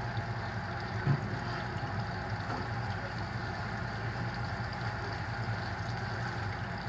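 Lobster pieces deep-frying in hot oil: a steady sizzle over a low, even hum, with one soft knock about a second in.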